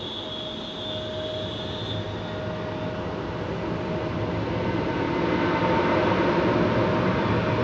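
Turbofan jet engines of a taxiing Embraer 175 airliner, a steady whine over a rumble that grows steadily louder as the aircraft approaches.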